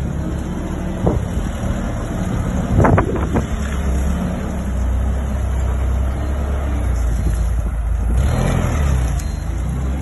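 The LPG engine of a JCB Teletruk TLT30G telescopic forklift running steadily as the truck drives and turns, with a few short knocks about three seconds in.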